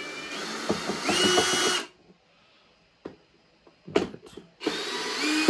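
Cordless drill-driver unscrewing the screws of a plastic scale housing: the motor whines up in pitch, runs until about two seconds in and stops, then starts again near the end.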